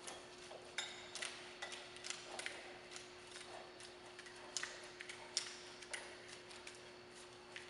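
Light irregular clicks and ticks from the hand-cranked vise handwheel and screw of a Kalamazoo 8-3/4" x 18" horizontal band saw, a few strikes a second, over a faint steady hum.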